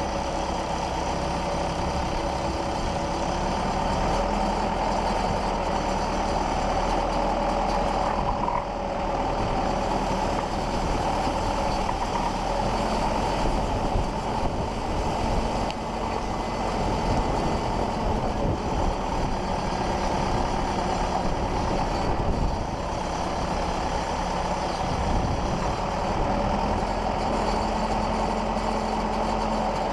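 A JCB 214 backhoe's diesel engine running steadily.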